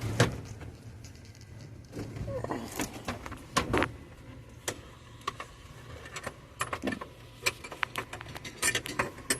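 Scattered light metallic clicks and jingles of a screwdriver and keys being worked in a truck's ignition switch, whose lock tumbler has fallen out. The engine does not start.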